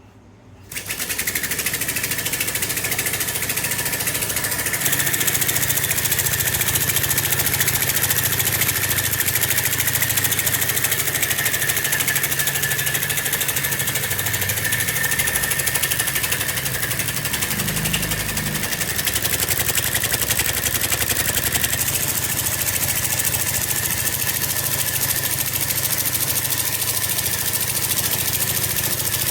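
Homemade steam engine made from a refrigerator compressor, running on steam: a steady hiss with a low mechanical hum underneath. It starts suddenly about a second in.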